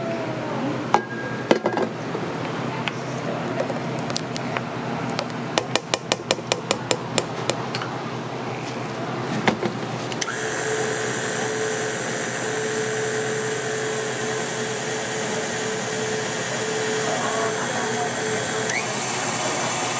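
A quick run of about ten sharp taps, then an electric stand mixer with a wire whisk starts about halfway through and runs steadily with a motor whine. Its pitch shifts near the end.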